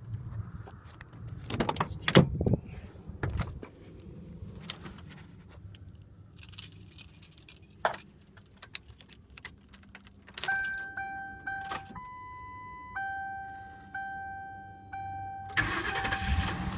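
Car door handle clicks and the door opens, a bunch of keys jangles, then the 2007 Ford Crown Victoria Police Interceptor's warning chimes ding about once a second as the key is switched on. Near the end the starter cranks and the 4.6-litre V8 starts.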